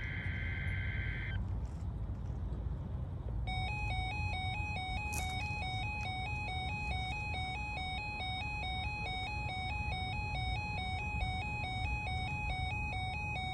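Electronic alert tone from a weather radio broadcast: a steady tone that stops about a second in, then after a short gap a harsh tone that warbles rapidly and evenly between two close pitches and keeps going.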